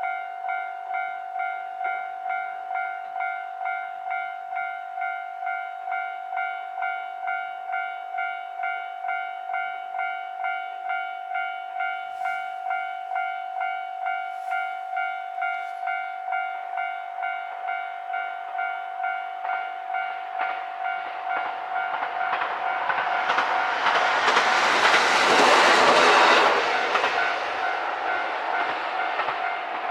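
Japanese level-crossing warning bell ringing steadily, about one and a half strokes a second. From about twenty seconds in, a JR Hokkaido H100 'DECMO' diesel-electric railcar approaches and runs through the crossing, loudest about twenty-five seconds in, then fades while the bell keeps ringing.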